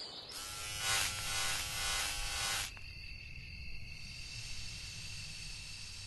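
A short burst of cartoon music with a pitched, noisy swell, ending about two and a half seconds in, followed by a steady high thin tone over a faint hiss.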